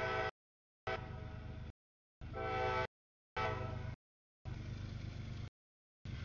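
Choppy snippets of freight-train sound, each under a second and separated by dead silence: some carry a steady multi-note horn chord, others a noisy rumble.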